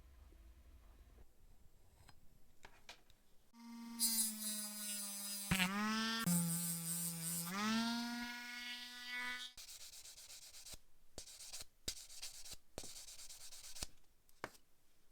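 A pitched whine lasting about six seconds that drops lower for a couple of seconds in the middle and then comes back up, followed by a run of short rubbing strokes like sanding or polishing on metal.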